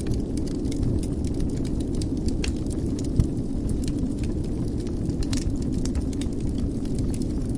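Wood fire burning in a fireplace, crackling with many small irregular snaps over a steady low rumble, and one sharper pop about three seconds in.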